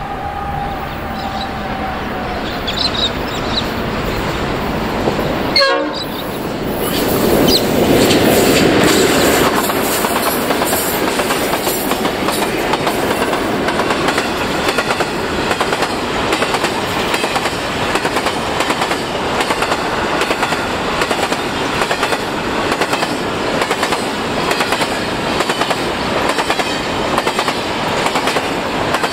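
Diesel-hauled grain train passing close by, with a horn sounding at the start. The locomotives' diesel engines grow loudest a few seconds in, then a long string of empty grain hopper wagons rolls past with a steady, regular clickety-clack of wheels over the rail joints.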